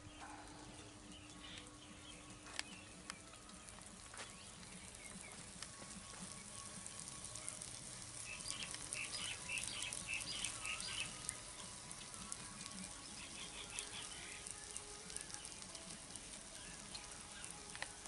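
Small chelwa fish frying in oil in a kadhai: a faint crackling sizzle that grows denser and louder for a few seconds in the middle.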